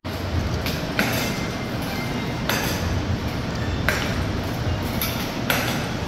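Steady low room hum with a few short, light ticks scattered through it, about four in all.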